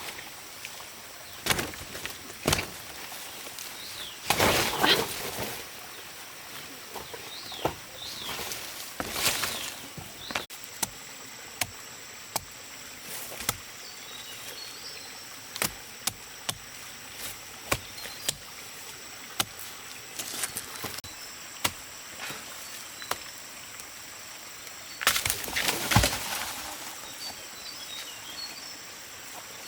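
Scattered sharp knocks and clicks, with several longer bursts of rustling, the loudest about four seconds in and near the end; faint bird chirps in the background.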